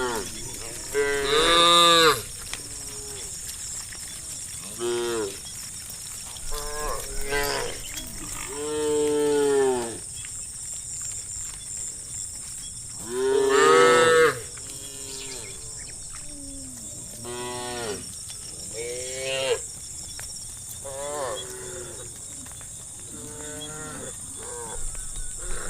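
A long series of pitched animal calls, one after another and some drawn out for over a second, with the pitch arching up and down in each call. The loudest come about a second in and just past the middle.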